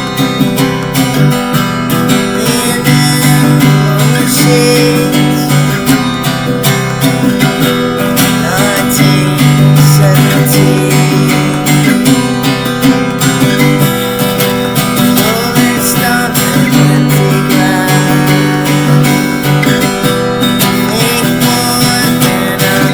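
Acoustic guitar strummed steadily in chords, playing on without singing.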